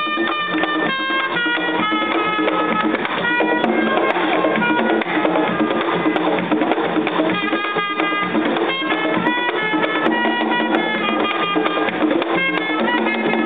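Live Caribbean band music from a pier: quick melodic notes over drums and percussion with a steady beat.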